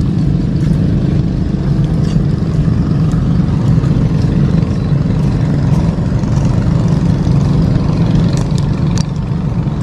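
A motor running steadily with a low, even drone, and a few faint clicks over it.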